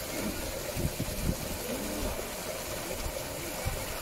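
Zoo enclosure ambience: a steady rush of background noise with faint, distant visitors' voices.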